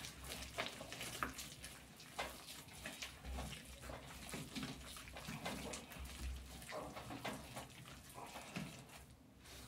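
Faint, irregular wet squishing and crackling of butter, sugar, egg yolks and a little milk being mixed together as the start of a sweet bread dough.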